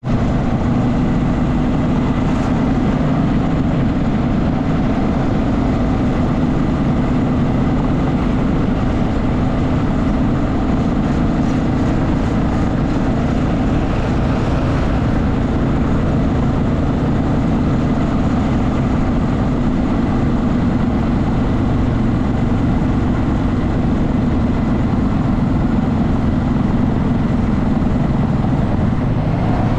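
Motorcycle engine running steadily at cruising speed, mixed with wind and road noise, heard from on the bike while riding.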